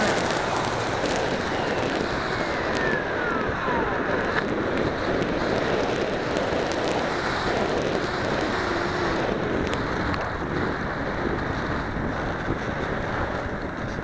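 Wind rushing over the microphone of a camera carried on a small remote-controlled aircraft in flight, a steady rush with no motor tone. A faint whine slides down in pitch about two to four seconds in.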